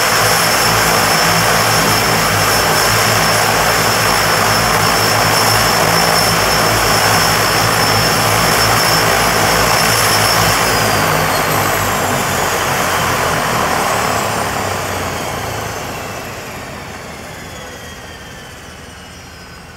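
DHC-6 Twin Otter's PT6A turboprop engines running with a steady high turbine whine, then shut down about halfway through: the whine slides down in pitch and the engine noise dies away as they spool down.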